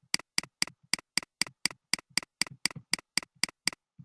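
A run of sharp, evenly spaced clicks, about four a second, each with a softer low knock between, stopping shortly before the end.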